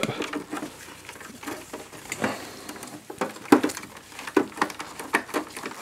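Phillips screwdriver turning out a screw in a plastic UPS case: faint, irregular clicks and scrapes of the driver tip and gloved hands, with a few sharper ticks, the sharpest about three and a half seconds in.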